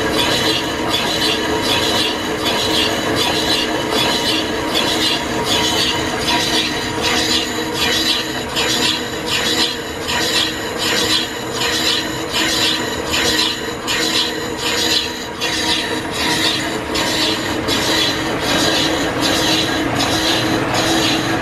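Old line-shaft-driven flat-belt lathe running, its tool taking a facing cut on a large metal wheel turning on an arbor: a steady scraping cut with a regular pulse about twice a second, over the running belts and shafting.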